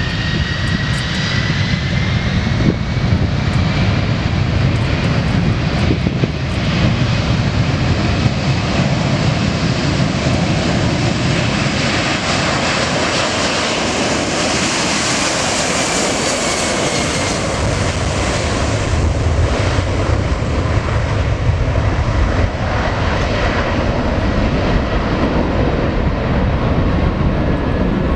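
Boeing 747 jet engines at takeoff power as the airliner passes. The hiss swells to a peak about halfway through and then eases, and a whine glides in pitch over it.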